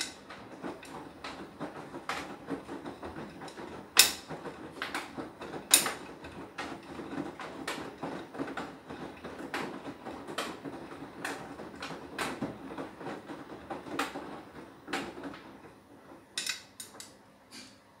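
Beko WTK104121W front-loading washing machine tumbling its load during the Anti Allergy cycle, with irregular clicks and knocks as the wash turns in the drum, two of them louder about four and six seconds in. The sound dies away near the end as the drum stops.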